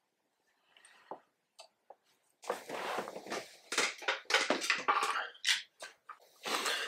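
A couple of faint clicks, then a run of rustling, clattering handling noises in short uneven bursts, like parts and hoses being moved about in a tight engine bay.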